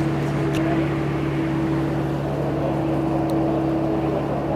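A steady engine hum holding one pitch, with a couple of faint clicks.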